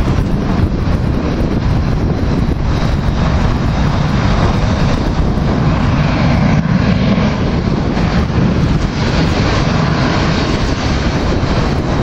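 Twin-engine Blue Angels F/A-18 jets running on the ground as they taxi along the runway: a loud, steady jet rumble and hiss.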